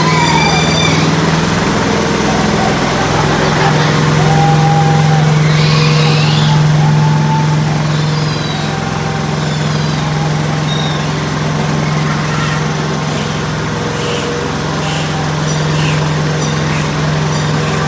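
A small engine running steadily with a constant hum, with brief high squeals over it and a few sharp clicks near the end.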